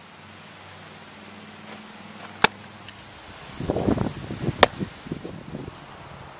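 Windmill softball pitch: a scuffle of cleats on the dirt circle as the pitcher strides and releases, then a sharp smack as the ball pops into the catcher's mitt about two-thirds of the way in. One other sharp smack comes earlier, about halfway between the start and the middle.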